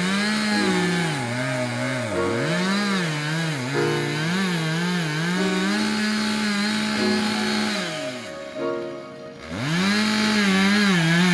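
Chainsaw cutting through a tree trunk at full throttle to fell it, its engine note repeatedly sagging and picking up again as the chain bites. Near the end the saw drops off for about a second, then revs back up and keeps cutting.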